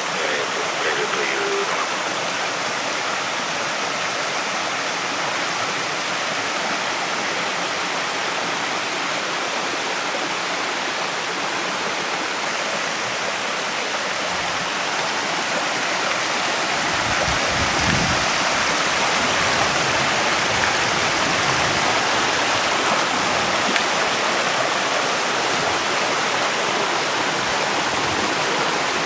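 A small, rocky mountain stream rushing and splashing over stones in little cascades, a steady rush of water that grows a little louder and fuller about halfway through.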